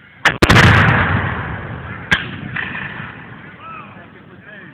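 Black-powder guns firing blanks. Two reports come in quick succession, the second a loud boom whose rolling echo dies away over about two seconds, then a single sharp shot a couple of seconds in.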